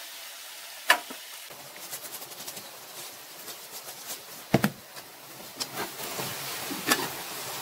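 Fish cake and fried tofu stir-fry being tossed in a hot pan with a wooden spatula: a faint steady sizzle with a few sharp clicks and knocks of the spatula against the pan, the loudest about halfway through.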